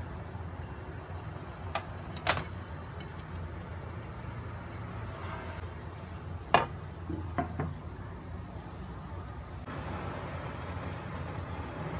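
A ceramic plate set down on a perforated metal steamer rack in a wok with two sharp clinks, then a glass lid put on the wok with a loud knock and a few smaller knocks as it settles, over a steady low rumble.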